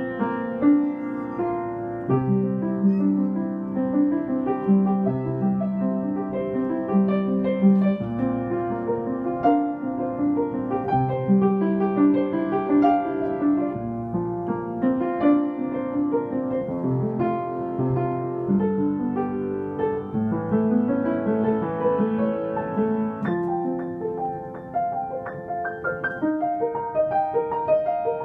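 Upright acoustic piano played solo: a steady flow of overlapping notes and chords, a melody over a moving accompaniment.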